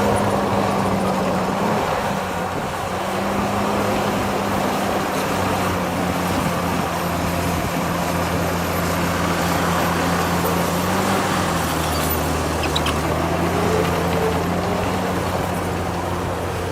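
Heavy diesel engine of earthmoving machinery running steadily, its pitch shifting slightly now and then as the load changes.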